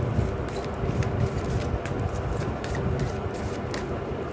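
A tarot deck being shuffled by hand: cards rubbing and sliding against each other, with irregular light snaps.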